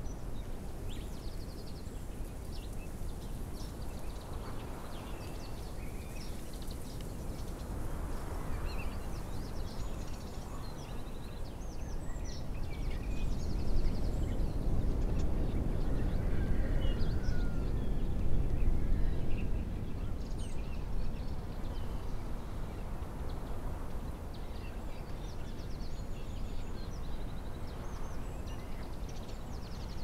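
Outdoor mountain ambience: a low rumble of wind that swells for several seconds in the middle, with many short bird calls and chirps scattered throughout.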